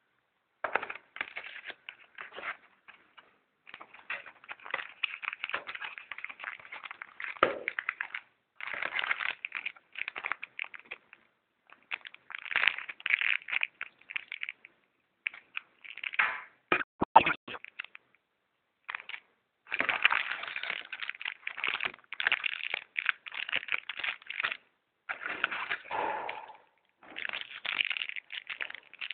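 Clicks and crackling in irregular clusters, broken by short pauses: the phone and its packaging being handled.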